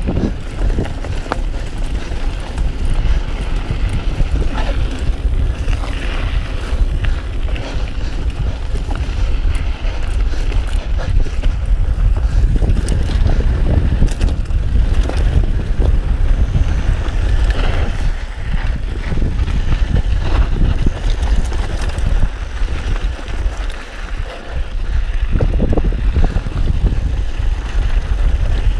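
Wind buffeting the microphone in a steady low rumble during a fast mountain-bike descent, mixed with the rattle of the bike and its tyres over a rough dirt trail.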